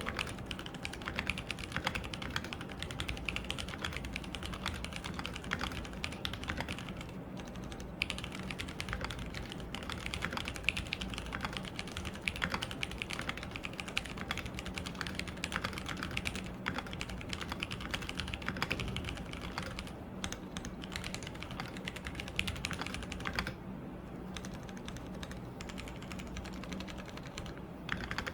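Typing on a Keychron Q1 mechanical keyboard with Gateron Phantom Brown tactile switches, an aluminium plate and ABS keycaps: a steady run of keystroke clicks with a few short pauses.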